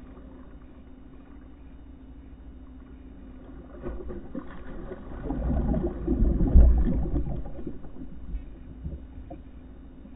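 A hooked cobia thrashing and splashing at the surface right against a kayak's hull. The splashing builds about four seconds in, is loudest just past the middle, then dies back.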